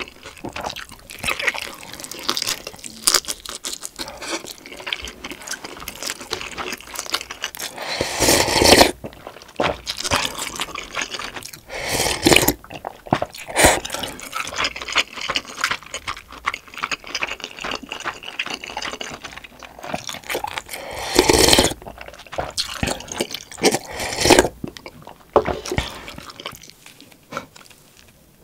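Close-miked chewing and wet mouth sounds of a person eating dumplings: a steady run of small smacks and clicks, with a few louder bursts.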